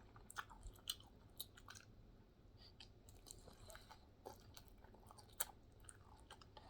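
Faint close-up chewing of a mouthful of spicy noodles, with irregular small wet mouth clicks.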